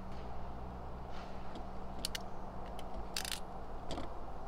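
Ratcheting wire crimper clicking as it crimps heat-shrink butt connectors onto wires: a few separate sharp clicks, then a short run of rapid clicks about three seconds in. A steady low hum runs underneath.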